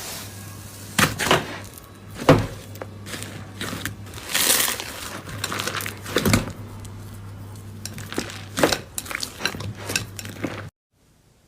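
Slime being squished and pressed by hand, giving irregular sharp crackles and pops, with a longer crunching stretch about four to five seconds in. The sound cuts off suddenly near the end.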